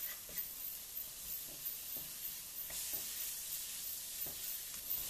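Shredded carrot, leek and onion sizzling in oil in a nonstick wok while a wooden spoon stirs them, with faint scrapes and taps of the spoon against the pan.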